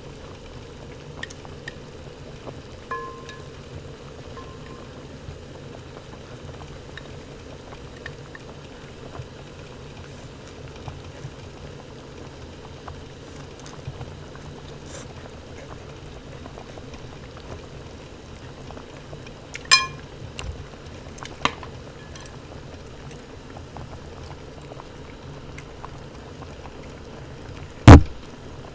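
Hot-pot broth simmering steadily in a stainless steel pot, with light clicks of chopsticks on dishes. There is a ringing clink about two-thirds of the way through and one loud knock near the end.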